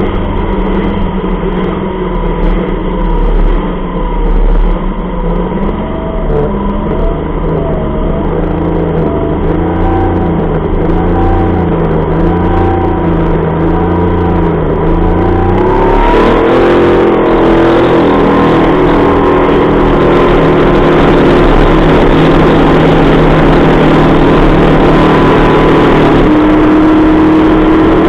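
40 hp Mercury outboard motor running at speed, its engine note wavering up and down in pitch for several seconds. About sixteen seconds in the note rises and then holds higher, under a louder rush of water and spray off the lower unit.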